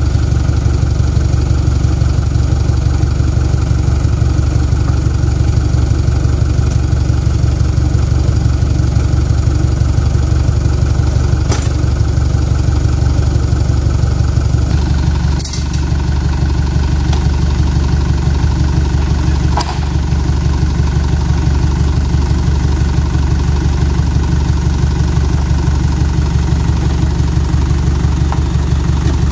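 Small flatbed lorry's engine idling steadily in a low drone, with a few sharp knocks as oil palm fruit bunches are thrown into its bed.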